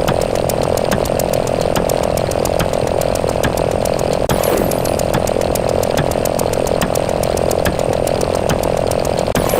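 Counting sound effects: a steady electronic buzz with rapid, evenly spaced clicks, many a second, as the counter's digits tick over.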